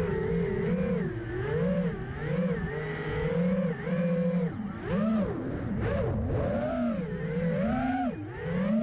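FPV racing quadcopter's brushless motors whining, the pitch rising and falling quickly with throttle changes through freestyle manoeuvres, with a few deeper dips where the throttle is cut.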